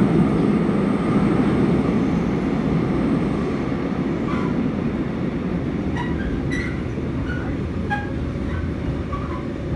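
Seoul Metro 4000-series subway train running on the rails, a steady rumble from the wheels and running gear heard from inside the car, easing slightly. A few brief, faint squeaks come from the wheels in the second half.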